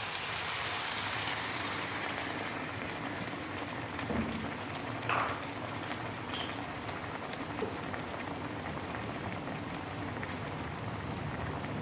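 A cup of water hits hot pork belly fat and garlic in a metal pan and sizzles loudly at first. It then settles into a steady bubbling simmer, with a few light clicks.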